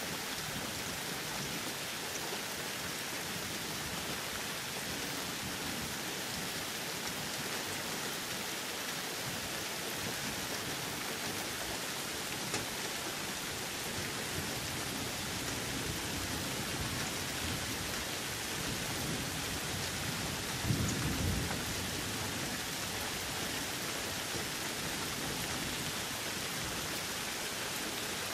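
Steady rain falling in a thunderstorm, an even hiss, with one short low rumble of thunder about two-thirds of the way through.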